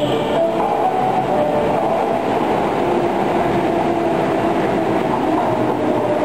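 Osaka Municipal Subway train pulling into an underground station and running close past: a steady, loud rumble of wheels on rail with a whining tone over it as it slows for the platform.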